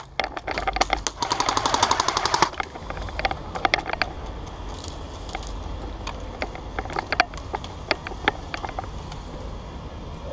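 Airsoft guns firing: a rapid full-auto burst of about two seconds, then scattered single shots.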